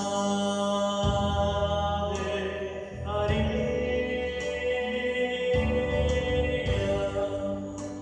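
Church music on an electronic keyboard: slow, held chords that change every second or two, with voices singing along.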